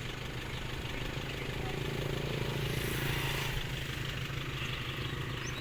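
A small engine running steadily at idle, a low even hum that swells slightly in the middle.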